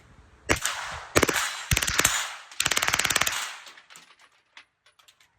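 A 9mm AR-pattern carbine with a forced-reset Super Safety trigger firing rapidly: one shot about half a second in, then three fast strings of shots, the last close to a second long. It is cycling on a 10-ounce buffer, and the shooter finds it running better.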